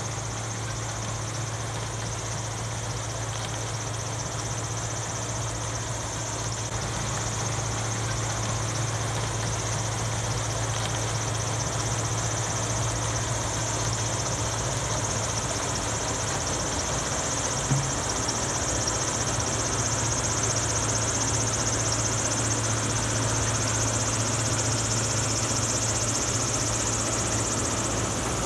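Heavy machinery running steadily, an engine with a constant low hum under a high hiss. There is one short thump about 18 seconds in.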